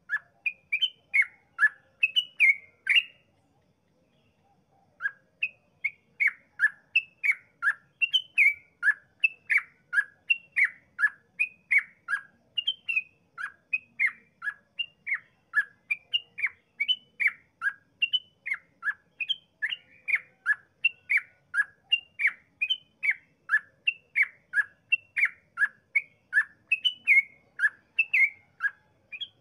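Yellow-vented bulbul (trucukan) singing its long 'ropel' song: short, clear notes that fall in pitch, given in quick succession at about two a second. There is a brief pause about three seconds in, then the run goes on without a break.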